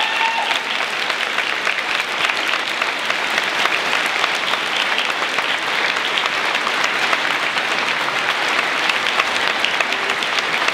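Large audience of pupils applauding steadily, a dense patter of many hands clapping.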